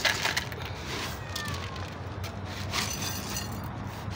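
Dry cat food rattling and rustling in short bursts as it is scooped out by hand, over a low steady hum.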